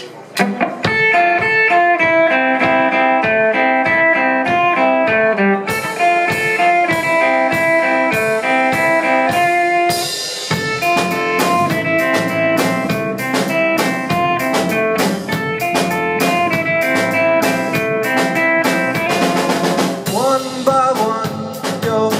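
Live band playing a song's instrumental intro: a repeated guitar figure over a steady beat on a Pearl drum kit, with the sound getting fuller about halfway through.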